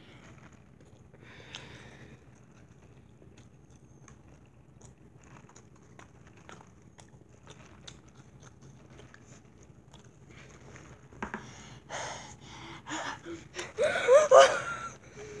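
A boy breathing hard through his mouth, gasping and wheezing against the burn of spicy habanero sauce. The breaths start about eleven seconds in, get louder and end in a short wordless cry that rises and falls.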